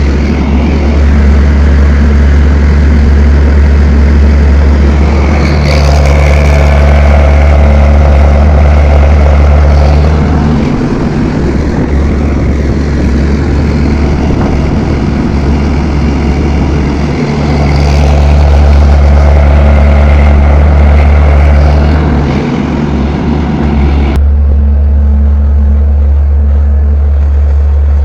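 Diesel engine of a CAT 320 hydraulic excavator running steadily with a deep drone. It swells twice as the engine takes load while digging. Near the end the higher-pitched noise drops away abruptly.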